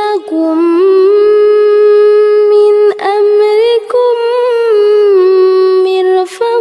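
A woman reciting the Qur'an in a melodic, chanted style, drawing out the close of a verse in long held vowels with slow turns of pitch. The line breaks briefly about three seconds in and again a second later.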